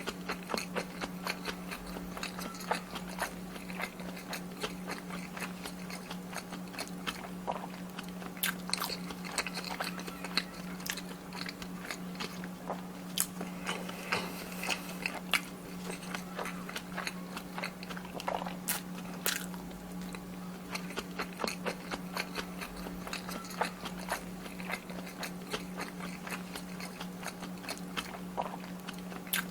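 Close-miked chewing of kimchi fried rice, with many short, sharp crunching bites and mouth clicks over a steady low hum.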